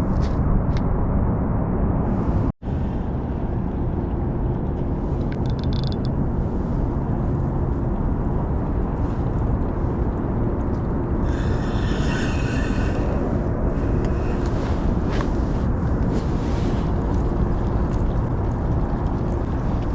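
Steady low outdoor rumble, like wind and distant traffic on the waterfront, with a faint steady hum; it cuts out for an instant about two and a half seconds in.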